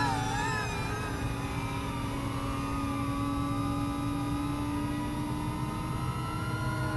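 FPV quadcopter motors and propellers whining steadily in flight, a constant hum with a fainter higher tone that drifts slightly in pitch with throttle.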